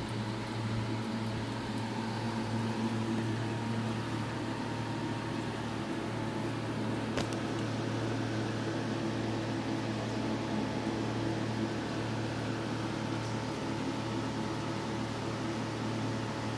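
Steady low electrical hum of the aquarium's sump filter pump running, with a faint hiss over it and one short click about seven seconds in.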